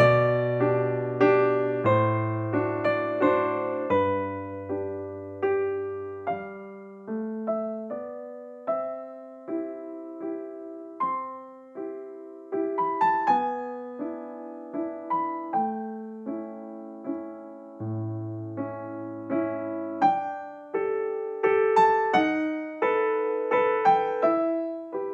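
Background piano music: a slow, gentle melody of single struck notes over soft chords and bass notes, each note fading after it is played.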